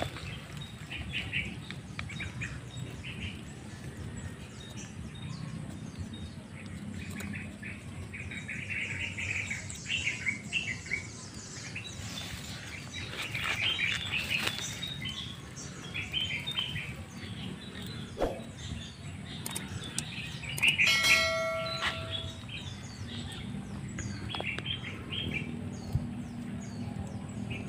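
Wild birds chirping and calling in short repeated phrases. About three-quarters of the way in comes one louder, clear, steady-pitched call lasting about a second.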